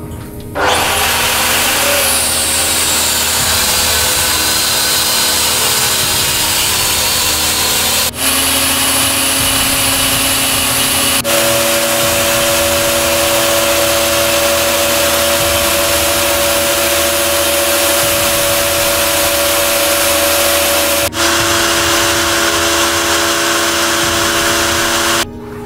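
Electric fogging machine running, with its motor and blower making a loud, even rush and a steady hum as it pours insecticide fog against cockroaches. The sound breaks off briefly about 8, 11 and 21 seconds in, and the hum's pitch shifts slightly after each break.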